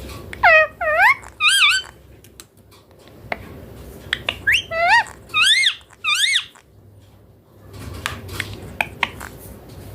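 Indian ringneck parakeet calling: three swooping, high-pitched calls, then after a pause about four more. A few small clicks follow near the end.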